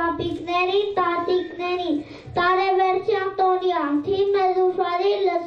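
A young boy singing solo and unaccompanied into a microphone: a child's voice in held, melodic notes with short breaths between phrases.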